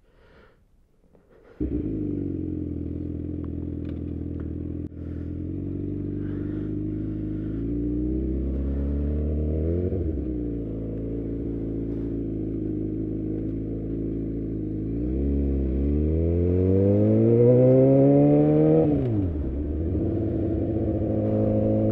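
Motorcycle engine heard from the rider's seat, cutting in suddenly after a second and a half of near silence. It pulls away, rising briefly in pitch about ten seconds in, then rises steadily for several seconds under acceleration before a sharp drop at a gear change, then runs steady.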